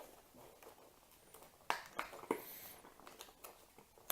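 Cardboard lock packaging being handled and pried at by hand while trying to open it: scattered light taps, clicks and scrapes of the carton, with a brief high scratchy sound a little past the middle.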